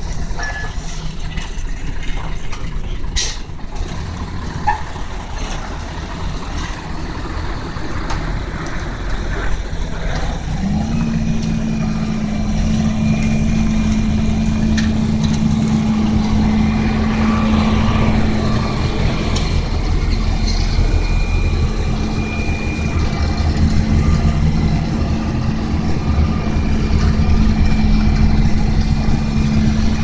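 Heavy diesel engines of a Volvo asphalt paver and a dump truck running steadily. There is a sharp clank about three seconds in, and about ten seconds in a steady hum joins the engine noise and holds.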